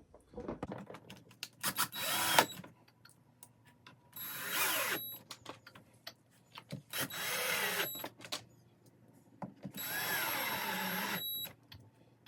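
Power drill driving the mounting screws of a replacement casement window crank operator, in four short runs of about a second each with pauses between, and small clicks and taps in the gaps.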